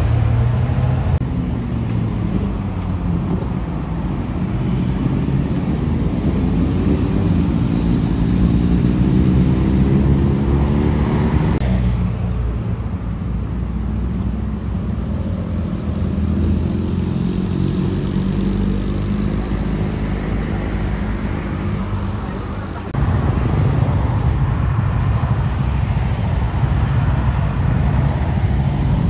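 Sport motorcycle engines, inline-four superbikes such as the BMW S1000RR with aftermarket exhausts, idling and revving as bikes pull away at low speed. Engine pitch rises and falls with the throttle, and the sound changes abruptly twice.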